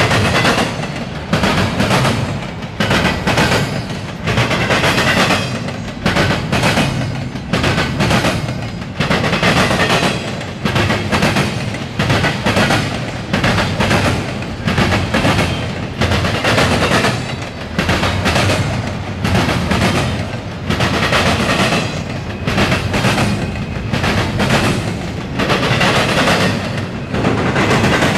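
Norfolk Southern double-stack intermodal freight train passing at close range, its wheels banging over the track in a loud, rhythmic clatter that comes in groups about once a second.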